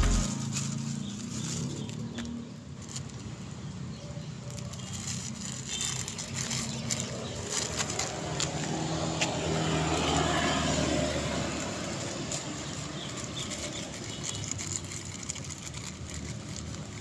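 Cat crunching dry kibble, a run of small crisp clicks, while a road vehicle passes on the street, swelling and fading around the middle.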